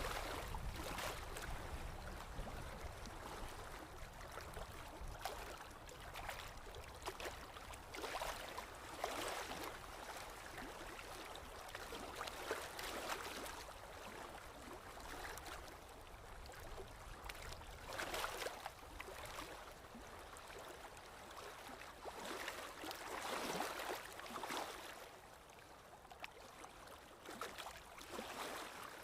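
Paintbrush strokes on canvas: irregular scratchy brushing that swells and fades every second or so.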